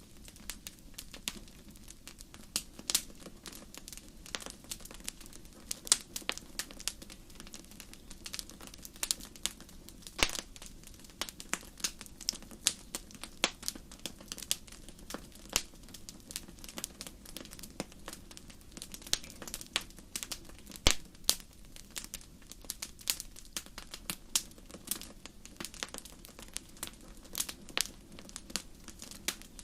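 Wood campfire burning: a steady low rush of flame under frequent, irregular sharp crackles and pops of the burning wood, some much louder than others.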